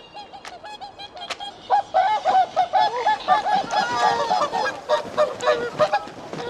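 Several whooper swans calling in a territorial display: a rapid run of short, trumpeting honks from more than one bird, overlapping. The calls are fainter at first and grow much louder and denser about a second and a half in. The calling is a warning and challenge to rival swans intruding on the breeding territory.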